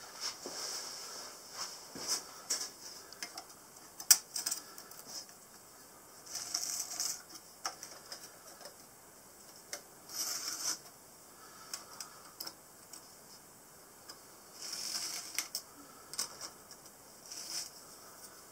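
A blade scratching lines into the oven's soft brick lining along a steel rule, in a few short scraping strokes, mixed with small clicks and taps of the rule and tool on the brick, the sharpest about four seconds in.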